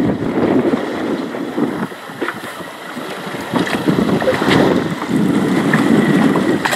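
Wind buffeting the microphone over choppy sea washing against a boat's hull, gusting unevenly and stronger in the second half.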